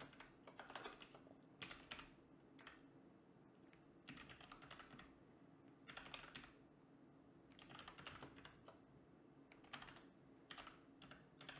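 Faint typing on a computer keyboard: short runs of key clicks with pauses between them.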